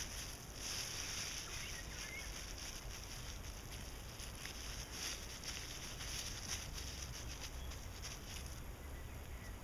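Thin plastic bag rustling and crinkling, with loose soil crumbling, as gloved hands press and tuck the bag's edge into the earth.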